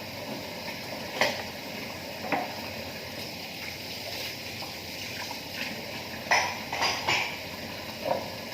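Dishes and cutlery clinking and knocking together as they are handled, about six sharp clinks, over a steady hiss of water.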